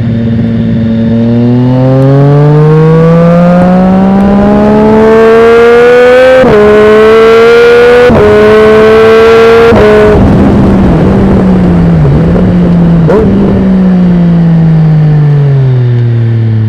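Triumph Street Triple 765 RS inline-three engine through a Dominator aftermarket exhaust, under way. It accelerates hard with its pitch climbing, and shifts up quickly three times. It then comes off the throttle, with a few brief dips in pitch like downshifts, and winds down steadily as the bike slows.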